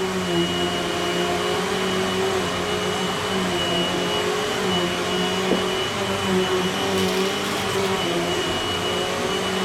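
Eureka AirSpeed upright vacuum running steadily, sucking debris off carpet: a constant motor hum with a thin high whine over the rush of air.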